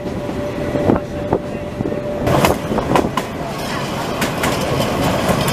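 Mk48 narrow-gauge diesel locomotive running along the track, heard from on board as a steady mix of engine and running noise. A thin steady whine sounds for about the first two seconds, and sharp clicks and knocks from the wheels and track come in from about two seconds in.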